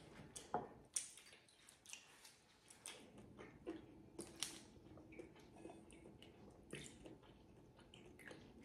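Faint, scattered clicks and taps of a metal spoon against ceramic bowls as chicken curry is spooned from a serving bowl into a small bowl.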